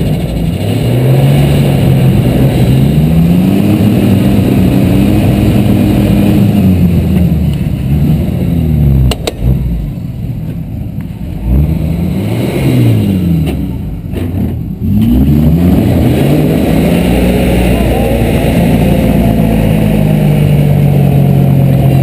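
Ford pickup truck's engine revving hard in repeated rises and falls while the stuck truck strains up a slope against a tow line. It backs off and goes quieter for several seconds in the middle, then revs up again.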